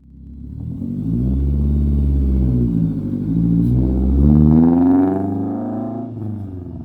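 Honda S2000's four-cylinder engine heard through its exhaust, revving. The note climbs to a peak about four and a half seconds in, then falls away.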